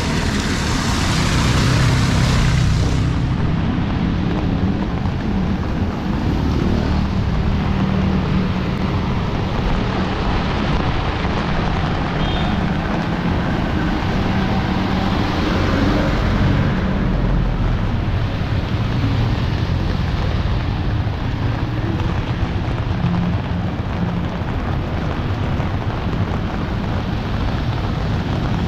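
Busy street in the rain: a steady hiss of rainfall over the low hum of vehicle engines, with a brighter, louder rush for the first few seconds.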